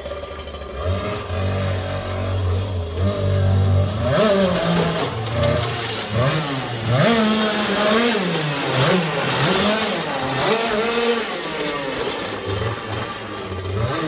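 Go-kart's Pavesi two-stroke engine running, at first fairly steady, then from about four seconds in revving up and down again and again, about once a second, as the kart is driven, easing off near the end.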